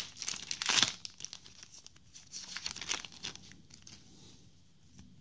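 Foil booster pack of trading cards being torn open, a loud rip in the first second, then more crinkling of the foil wrapper about two seconds in, dying away near the end.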